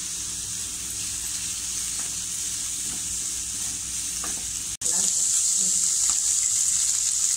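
Chopped green capsicum and onion sizzling as they fry in oil in a metal kadai, stirred with a wooden spatula. The hiss is steady, cuts out for an instant nearly five seconds in, then comes back louder.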